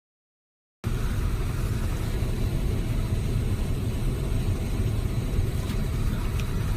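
Under a second of dead silence, then a steady low rumble of engine and cabin noise, as heard inside a private jet.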